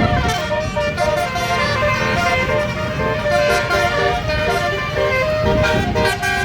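A bus's 12-note basuri telolet horn playing a melody of quick notes that step up and down in pitch, with a low rumble underneath.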